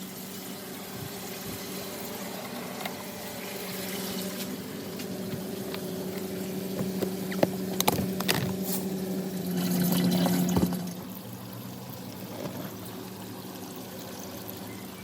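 Water pouring into a container over a steady hum, getting louder and then stopping about eleven seconds in, with a few clicks just before.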